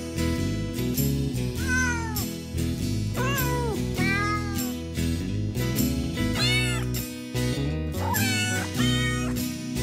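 Cat meowing about half a dozen times, several meows in quick pairs, each call rising then falling in pitch, over background music.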